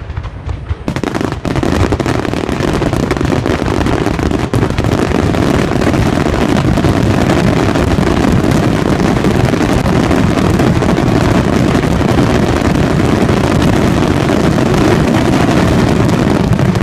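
Fireworks finale barrage: many shells bursting at once, their explosions running together into one continuous loud rumble that starts about a second in.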